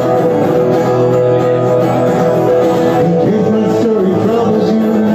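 Live acoustic guitar strummed under a man's singing, with a long held note in the first half and a moving melody after it.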